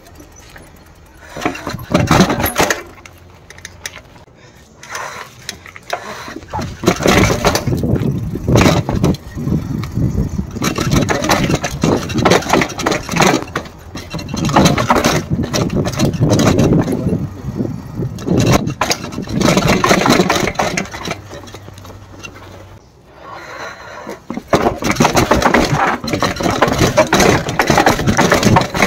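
Mountain bike rattling and clattering as it is ridden over rough ground and steps, in loud uneven swells of noise with many sharp knocks.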